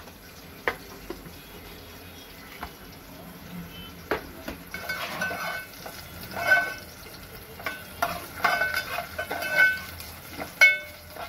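Steel spatula stirring and scraping sliced onions frying in a stainless steel pot, over a faint sizzle. After a few light clicks, the stirring begins about four seconds in as repeated scraping strokes that ring against the metal pot.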